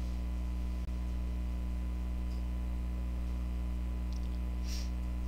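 Steady low electrical hum with a faint hiss, with a soft click about a second in and a brief soft hiss near the end.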